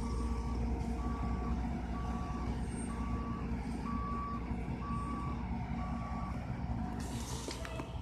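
Garbage truck backing up: its reversing alarm beeps about once a second over the low, steady running of its diesel engine, and the beeping stops about six seconds in. A short hiss follows near the end.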